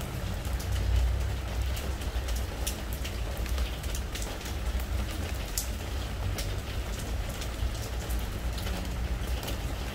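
Rain falling on a treated-wood deck: a steady patter with many single drops ticking sharply, over a low rumble that swells about a second in.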